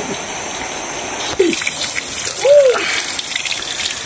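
Water running and splashing from a bamboo pipe onto the ground, starting about a second in, with two short rising-then-falling hums over it.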